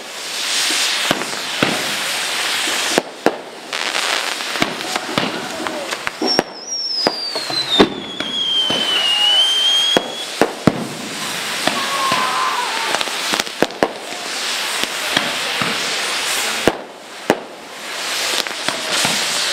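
Fireworks going off: a dense crackle of firecrackers cut by many sharp bangs. A high whistle falls in pitch for a few seconds about six seconds in.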